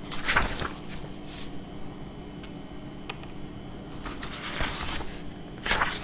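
A few short, soft rustling and handling noises close to a handheld microphone, over a faint steady hum.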